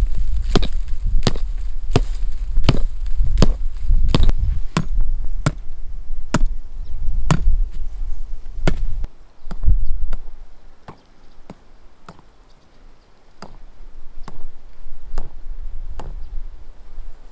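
Repeated chopping strokes with a blade, sharp knocks coming steadily about once every two-thirds of a second, growing quieter in the second half, over a low rumble in the first half.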